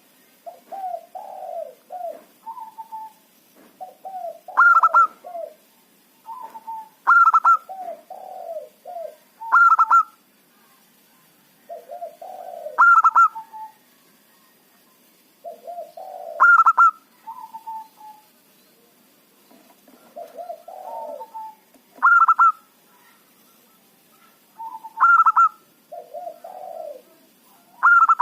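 Zebra dove (perkutut) cooing: a phrase repeated every few seconds that mixes sharp, higher ringing notes with lower rolling coos, with quiet pauses between phrases.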